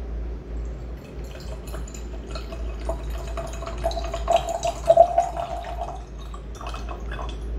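Tea pouring in a thin stream from a small zisha clay teapot's spout into a glass pitcher: a steady trickle with a faint tone that rises slightly as the pitcher fills. The stream stops about six seconds in, followed by a few last drips.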